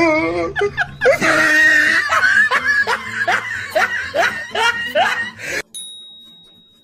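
A person laughing hard in a run of rapid, breathy bursts after a high wavering squeal. The laughing cuts off abruptly about five and a half seconds in, and a faint steady high tone follows briefly.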